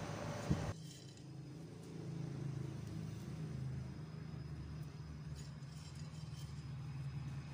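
A low, steady rumble with a sharp click about half a second in, just before a background hiss cuts off suddenly.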